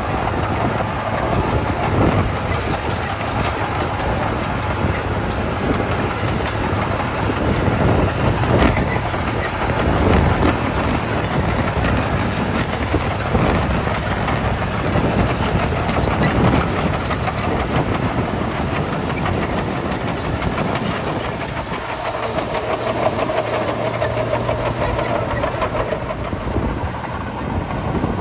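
Komatsu D41P crawler bulldozer working gravel: the diesel engine runs steadily under load while the steel tracks and blade give off a continuous rattle of knocks and clanks. A steadier, higher engine tone joins for a few seconds near the end.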